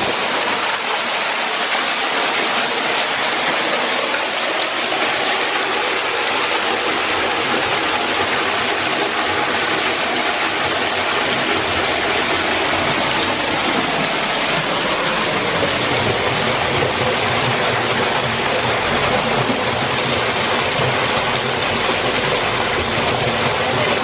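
Scott Falls, a thin waterfall pouring off a rock overhang and splashing steadily into a shallow pool, heard up close from underneath the ledge. The water noise is loud and even throughout.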